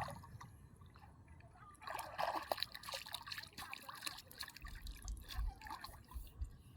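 Water trickling and splashing in irregular small bursts, busiest about two seconds in.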